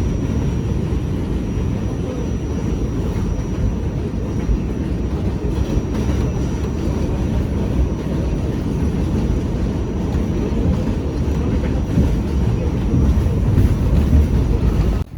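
Train running: a loud, steady low rumble with a faint, steady high-pitched whine above it.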